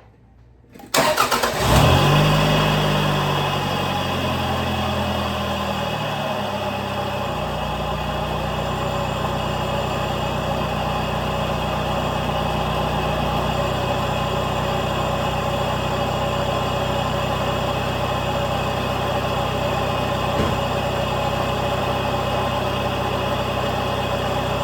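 1997 Toyota RAV4's four-cylinder engine cranking and starting about a second in, running at a fast idle for several seconds, then settling to a steady idle. It is the first start after an oil change, run to circulate the fresh oil before the level is checked.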